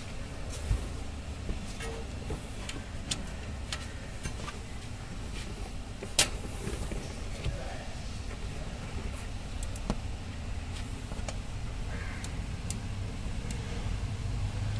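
Ratchet wrench with an 8 mm socket on an extension working the retaining bolt of an ABS wheel-speed sensor: scattered clicks and metal taps, a few sharper ones, over a steady low rumble.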